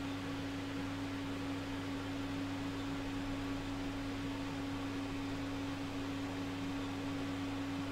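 Steady background hum: one constant mid-pitched tone over a low drone and faint hiss, with nothing else happening.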